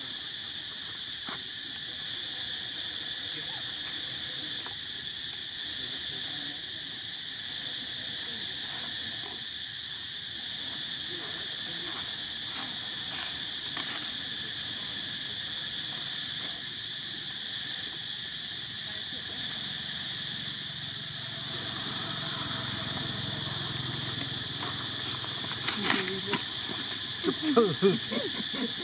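Steady high-pitched insect chorus buzzing without a break. Near the end, a few short, loud pitched calls from monkeys cut in.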